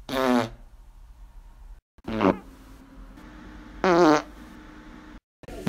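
A man breaking wind: three short, pitched farts about two seconds apart, each lasting about half a second, with abrupt cuts between them. A fourth begins right at the end.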